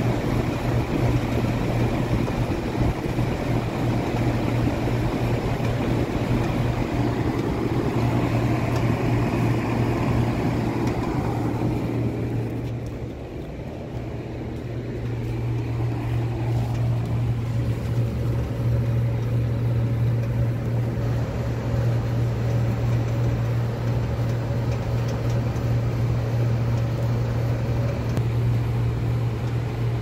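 1984 Day & Night 541D heat pump outdoor unit running in heat mode: a steady low electrical hum under the rush of the condenser fan's air. The air noise drops for a few seconds about halfway through, then comes back.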